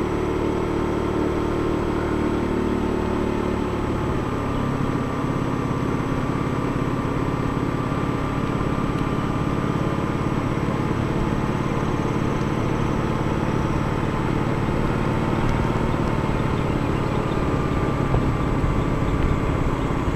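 A vehicle's engine running steadily while driving slowly along a paved road. Its note changes slightly about four seconds in.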